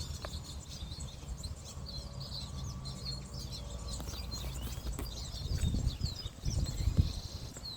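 A group of small birds chirping and twittering continuously, many quick overlapping high calls. A low rumble runs underneath and swells in bursts near the end.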